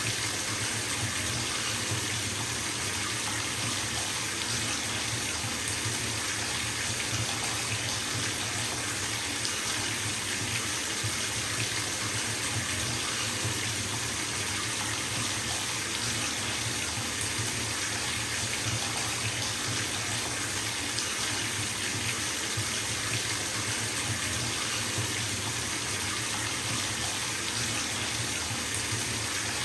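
Tap running full into a filling bathtub: a steady, even rush of water splashing into the tub, with a low hum under it.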